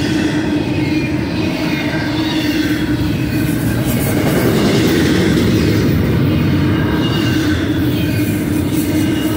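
Double-stack intermodal well cars of a BNSF freight train rolling past at speed: a steady, loud rumble of steel wheels on rail, with faint high-pitched wheel squeal over it.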